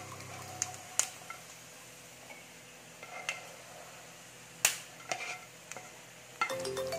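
Wooden spatula knocking and scraping against a nonstick frying pan and a glass bowl as fried coconut pieces are scooped out and tapped off, a handful of sharp separate knocks with the loudest about two-thirds of the way through. Soft background music fades out just after the start and comes back near the end.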